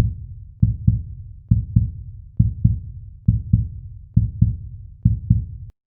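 Heartbeat sound effect: deep double thumps, lub-dub, about one pair every second, which stop abruptly near the end.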